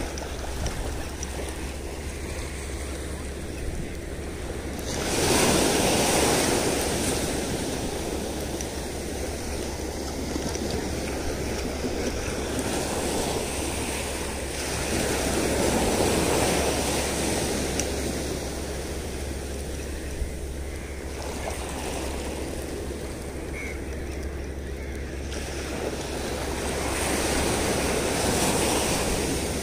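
Sea surf washing onto a sandy beach: a steady wash of small waves that swells loudly about five seconds in, again midway, and once more near the end.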